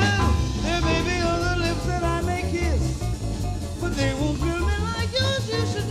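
Live jazz: a woman singing long, wavering notes over a trio of piano, double bass and drums.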